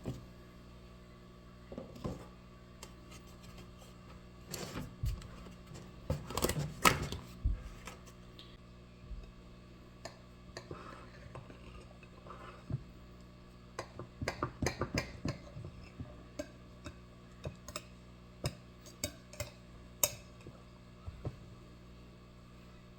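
Kitchen clatter: scattered clinks and knocks of dishes and utensils, in two busy spells about five to eight seconds in and again around fourteen to sixteen seconds, over a steady low hum.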